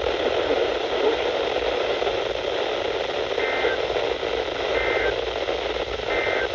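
Radio static hiss, with three short two-tone data warbles about a second and a half apart starting about halfway in. These are the Emergency Alert System (SAME) end-of-message tones that close the severe thunderstorm warning broadcast.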